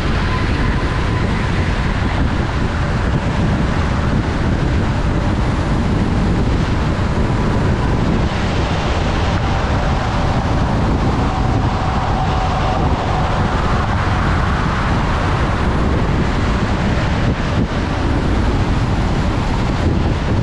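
Car driving at highway speed on a wet road: steady tyre and road noise with wind, heard through the windshield from inside the car, with a faint whine that sits slightly lower in pitch midway.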